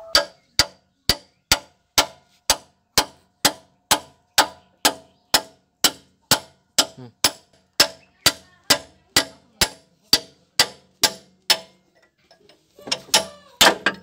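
Hammer blows on steel parts inside a Massey Ferguson DI 5245 tractor's differential housing during crown wheel and pinion work, each strike ringing. They come evenly, about two a second, for some eleven seconds, then after a short pause a few quicker blows near the end.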